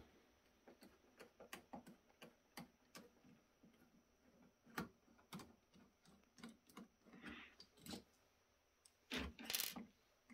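Faint irregular clicks and light rustling of wires and small plastic connectors being handled inside a rack-mount power strip's open metal chassis, with a sharper click about halfway and a brief louder scrape near the end.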